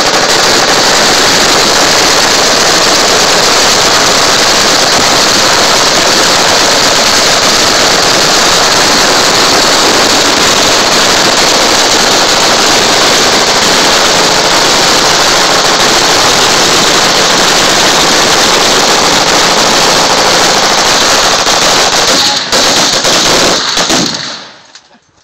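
Massed automatic gunfire from several machine guns firing at once, so loud and dense that the shots run together into one continuous din. It stops about 23 seconds in, with a few last scattered shots.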